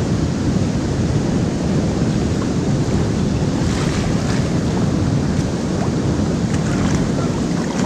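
Steady rush of river water pouring over a low dam spillway, with wind buffeting the microphone. About halfway through come a few splashes of rubber boots wading through shallow water.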